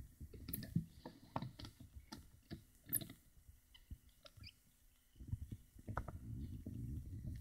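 Handling noise from a handheld phone camera: scattered light clicks and taps with low rumbling, the rumbling steadier from about five seconds in.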